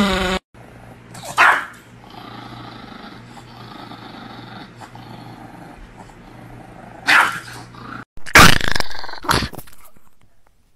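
Dogs barking and growling in a few short outbursts, loudest about eight to nine seconds in, with a quieter stretch between.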